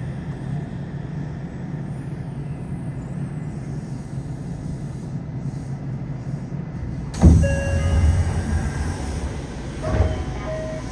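Yokohama Blue Line 3000R subway train (Mitsubishi IGBT-VVVF) rumbling at low speed as it comes to a stop at a platform. About seven seconds in there is a sudden loud hiss of air with a few short tones after it, and a smaller one about ten seconds in: the air brakes or doors letting out air once the train has stopped.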